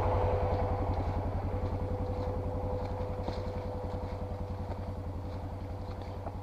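Four-wheeler (ATV) engine running at low speed with a steady, even pulse, gradually getting quieter.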